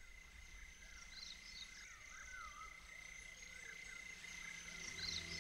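Faint bird calls: short chirps and warbling phrases that repeat every few seconds over a steady high whine. A low music note comes in near the end.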